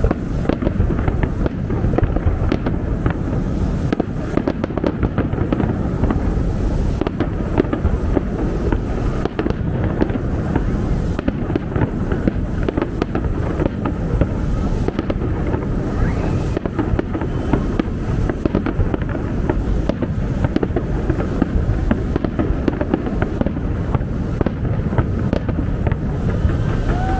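Fireworks display going off in a dense, unbroken barrage of bangs and crackling, heavy in deep booms.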